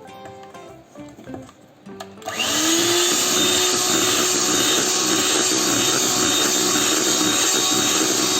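Electric mixer switched on about two seconds in, its motor rising in pitch as it spins up, then running steadily as it beats whipped cream with yellow food colouring. Soft guitar music plays before it starts.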